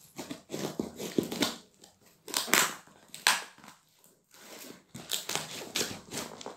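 Cardboard shipping box being opened by hand: irregular crinkling, crushing and tearing of cardboard and packing, with two louder rips about two and a half and three seconds in.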